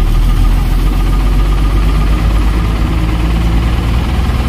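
Bus engine heard from inside the cabin near the front, running with a loud, steady low rumble as the bus drives on.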